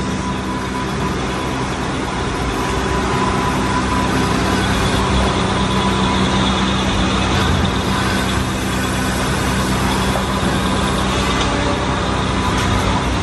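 Metal lathe running steadily, machining the hub of a Yamaha Y15 motorcycle sport rim to make a seat for the sprocket. There is a steady low hum with a thin high whine over it that fades out near the end.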